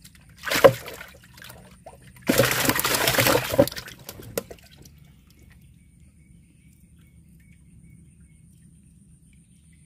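Water splashing and sloshing in two bursts, a short one about half a second in and a longer one from about two to four and a half seconds, then it goes quiet.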